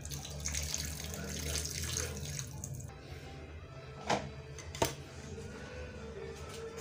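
Hot rinse water pouring off a frying pan of omena into a stainless steel sink for about three seconds, draining the water used to wash out the fish's bitterness. Then two sharp knocks, the frying pan set back on the stove.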